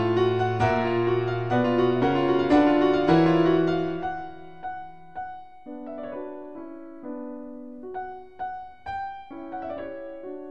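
Solo piano playing a classical piece: full chords over a bass line for the first four seconds or so, then quieter, sparser single notes.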